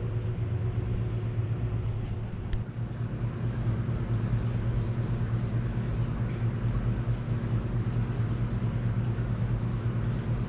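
A large shop fan running with a steady low hum. Two sharp clicks come about two seconds in as the camera is fixed onto its tripod.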